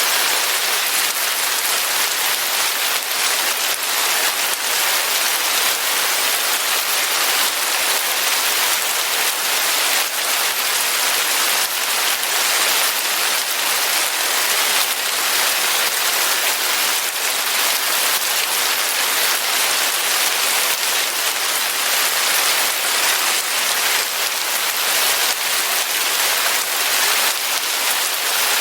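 Steady rain falling on a surface: an even hiss of many fine drops, with no let-up and no thunder.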